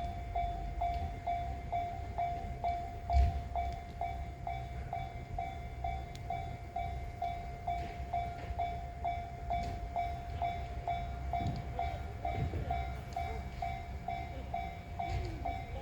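Japanese level crossing warning bell ringing at an even pace, about two dings a second, over the low, uneven rumble of a JR East E353 series limited express electric train running past on the rails.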